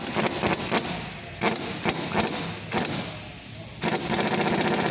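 Wheel stud being drawn into the hub with a lug nut: a string of sharp irregular knocks, then near the end a steady rattling run of about a second and a half, typical of an impact wrench spinning the nut down.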